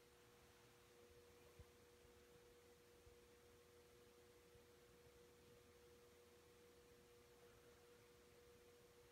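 Near silence: room tone with a faint, steady hum on one pitch, and a single faint tick about one and a half seconds in.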